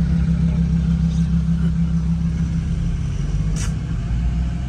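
Car engine running with a steady low drone, and one short sharp click about three and a half seconds in.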